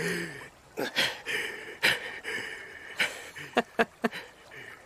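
Irregular footsteps of a barefoot man walking on grass, over a steady forest background sound.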